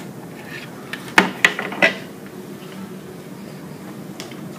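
Three sharp clacks close together, a little over a second in, as a hard plastic ripple generator unit is knocked into place on its metal mounting rod at a ripple tank frame.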